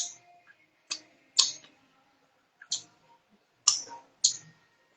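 Six sharp clicks at irregular intervals, each dying away quickly.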